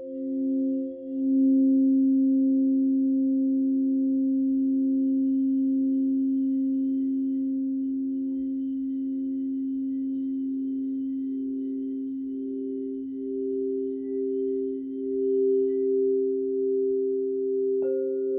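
Crystal singing bowls, tuned around 528 Hz, ringing together in several steady, overlapping tones. The lowest swells about a second and a half in, a middle tone pulses and grows louder, and a bowl is struck sharply near the end, adding a higher ring.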